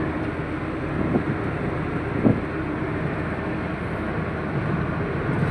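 Steady road and engine noise of a vehicle driving along a highway, with one brief knock a little over two seconds in.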